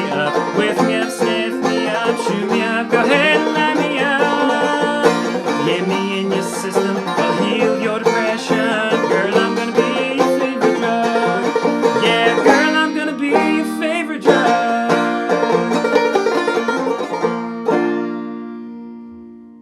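Clawhammer banjo playing a bluegrass-style tune with the band, closing on a final chord that rings out and fades away near the end.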